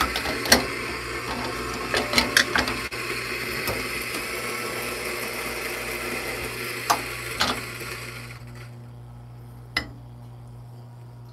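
Eureka Mignon Zero espresso grinder grinding a single dose of coffee beans, a steady whirring grind broken by scattered sharp cracks. The grinding dies away about eight seconds in as the beans run out, leaving only a low steady hum.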